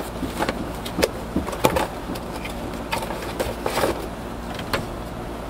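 Cardboard box and packaging being handled as an airsoft pistol is pulled out of it: scattered taps, scrapes and rustles, with a longer scrape about four seconds in.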